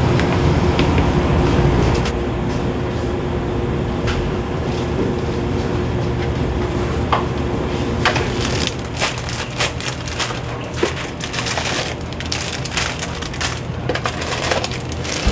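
Steady low hum of shipboard ventilation and machinery with a faint steady tone. From about eight seconds in comes a run of crinkling and crackling from candy bags and a cardboard box being handled.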